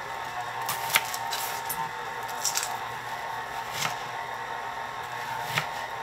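Chef's knife slicing a red onion on a plastic cutting board: the blade knocks on the board about half a dozen times at an uneven pace, over a faint steady hum.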